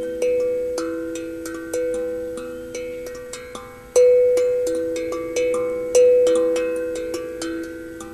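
Steel tongue drum (tank drum) played with the fingers: single notes struck one after another in a slow, loose melody, each ringing on and fading slowly so the notes overlap. The hardest strikes come about four seconds in and again about six seconds in.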